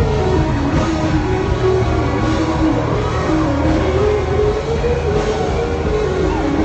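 Live worship band playing an instrumental passage: a sliding, wavering lead melody over heavy, steady bass.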